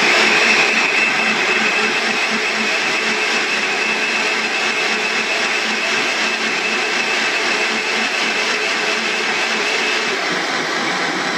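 Countertop jug blender running steadily at full speed, puréeing gazpacho vegetables (tomato, cucumber, onion) with a steady high-pitched motor whine.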